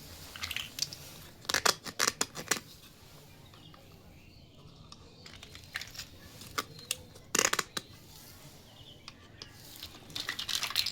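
Plastic packaging and small plastic toy-kitchen pieces being handled: bursts of crinkling, crackling and clicking in three clusters, about two seconds in, at about seven and a half seconds, and near the end.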